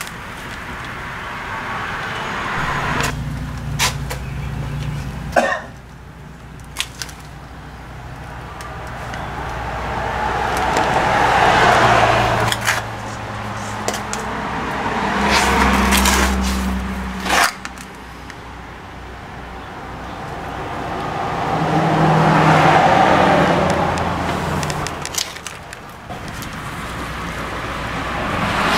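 Road vehicles passing, each swelling up and fading away over several seconds, with low engine hum underneath. A few sharp metallic clinks of tools come through in between.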